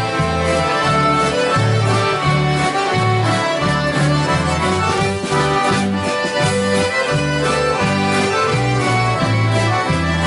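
Many accordions playing a traditional dance tune together, backed by guitars and a bass guitar keeping a steady alternating bass line.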